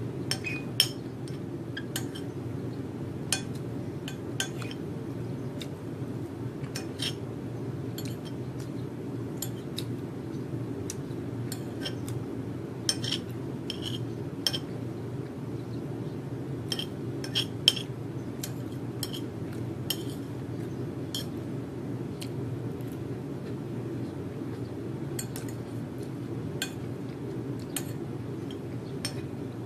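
Metal spoon clinking and scraping against a ceramic plate while someone eats, in irregular clusters of sharp clicks with short pauses between. A steady low hum runs underneath.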